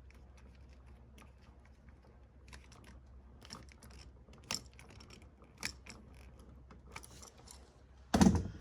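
Scattered light clicks and taps of a screwdriver and pliers fastening the black hot wire under an electrical outlet's terminal screw, with a louder thump near the end.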